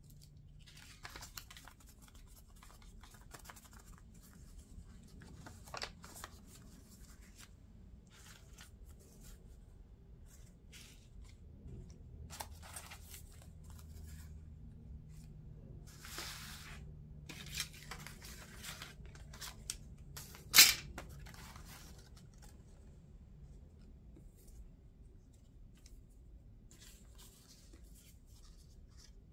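Paper scraps rustling, sliding and crinkling as they are picked up and laid down by hand, in scattered short crisp bursts. One brief, much louder crisp sound about two-thirds of the way through.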